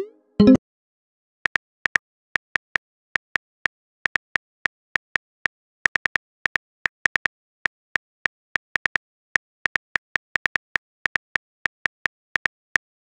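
Phone-keyboard typing sound effect: short, sharp tap clicks at an uneven pace, about four a second, as a text message is typed out. At the very start there is a brief rising pop as a message bubble appears.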